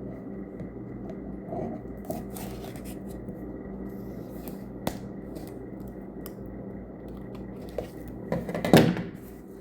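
A cardboard package being cut open with scissors and handled: scattered snips, clicks and rustles, with a sharp click about halfway and a louder burst of rustling and scraping near the end. A steady low hum runs underneath.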